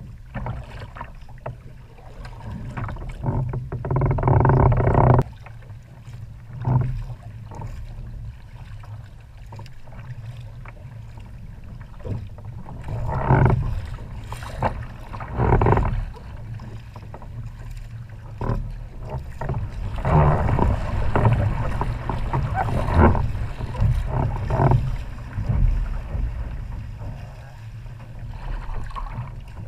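Wind buffeting the microphone on a kayak's bow, with choppy water slapping the hull and the paddle blades splashing through the waves. Louder surges of splashing come several times.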